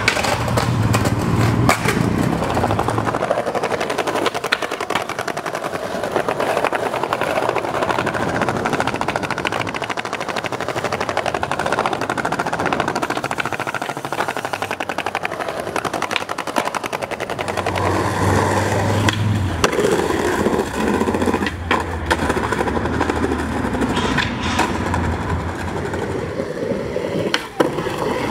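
Skateboard wheels rolling over stone paving, with sharp clacks now and then as the board is popped and lands.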